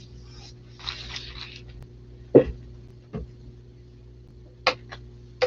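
Paintbrush scrubbing paint onto a canvas in quick strokes for the first second and a half, then a sharp knock about two seconds in, a softer knock, and a couple of short clicks near the end, over a steady low electrical hum.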